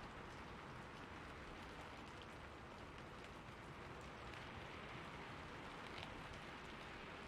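Rain falling steadily on a rooftop: a quiet, even hiss with scattered ticks of individual drops.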